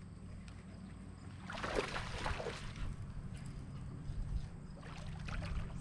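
Hooked largemouth bass splashing at the water's surface, once about a second and a half in and again near the end, over water lapping against the boat hull.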